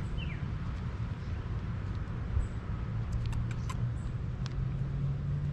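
Outdoor ambience of a low, steady road-traffic rumble, with a vehicle's hum growing louder from about halfway through. Small birds give a few short, falling chirps near the start.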